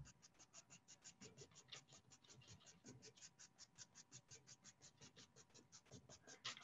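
Faint, quick, even scratching of a crayon on paper as short horizontal dashes are drawn, about six strokes a second.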